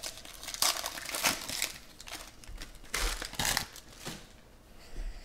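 Foil wrappers of Panini Prizm football card packs crinkling as packs are torn open and the cards handled, in two bursts: one about a second in and another about three seconds in.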